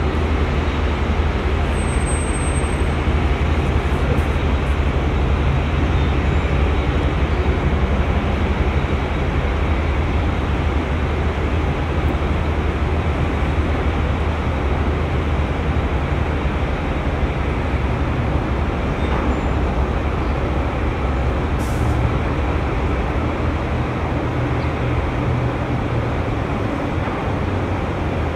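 Steady low machinery hum and rumble from the Zumwalt-class destroyer USS Zumwalt (DDG-1001) as it passes close by, unbroken throughout.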